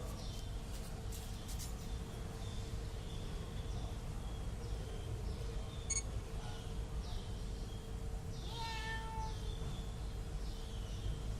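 Young kitten meowing, with one clear, high-pitched meow about nine seconds in.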